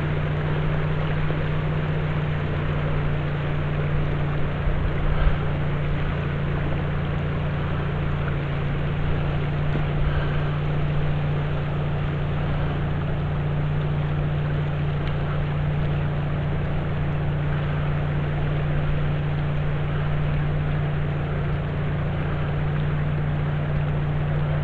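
A motor humming steadily at an even pitch, with a faint hiss of water or wind over it.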